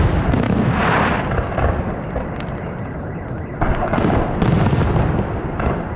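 Aerial fireworks shells bursting with sharp bangs and crackling over a steady low rumble. A cluster of bangs comes right at the start, crackling follows about a second in, and a second cluster of bangs comes about three and a half seconds in.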